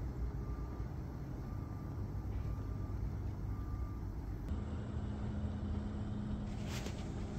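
Gas pilot flame of a raku kiln burner burning with a steady low rumble, while the safety valve is held open for the thermocouple to heat. A steady low hum comes in about halfway through.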